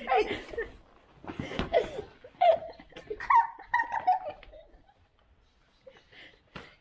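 Children laughing in several bursts, dying down after about five seconds.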